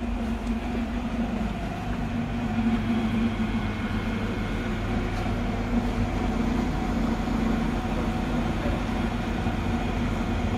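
A steady low mechanical hum holding one constant pitch over a low rumble.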